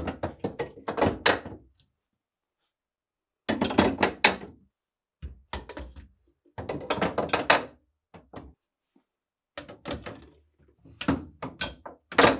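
Refrigerator shelves being inserted into their tracks and set into place: repeated clusters of knocks, clunks and clatter with short pauses between.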